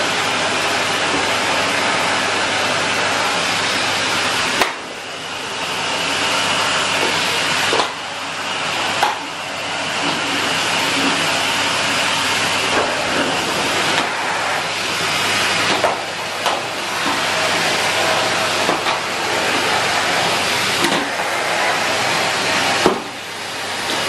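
Henry vacuum cleaner running steadily with an even rushing noise. Its level dips briefly several times, each dip with a small click.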